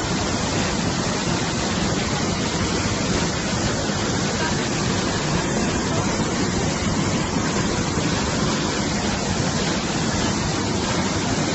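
Swollen, muddy floodwater rushing and churning over rocks at a waterfall, a steady unbroken rush of water.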